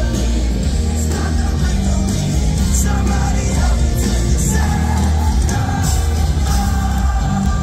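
Rock band playing live: a male singer over heavy drums and bass, holding long sung notes through the second half, with a loud, bass-heavy sound.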